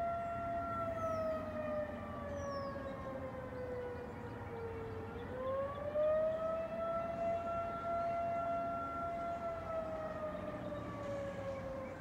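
Outdoor warning siren sounding in a test, wailing: a single steady tone that slides down in pitch about five seconds in, climbs back up, holds, and starts to fall again near the end.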